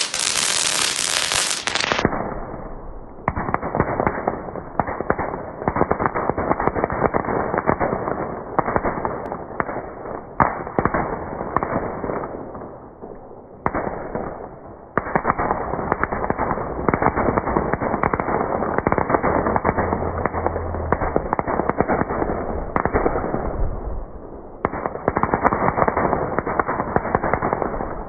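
Ground firework crackling and hissing as it throws out sparks, a dense run of fine pops. About two seconds in the sound turns muffled and dull as it plays in slow motion, and it eases off briefly twice.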